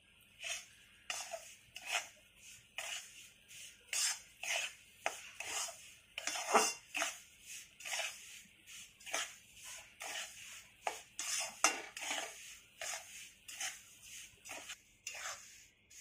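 A stirring utensil scraping round a kadhai in quick, even strokes, about two a second, as urad and moong dal flour roasts in ghee.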